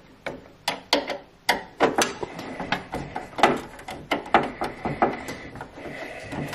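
Irregular clicks and knocks of a screwdriver working loose the hydroblock securing screw inside a combi boiler's metal casing, about three or four sharp ticks a second. A faint steady whine comes in about five seconds in.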